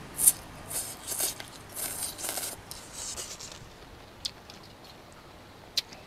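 A person slurping thin rice noodles from a bowl of beef noodle soup: several quick hissing slurps in the first three and a half seconds, the first the loudest, then chewing with a few sharp clicks.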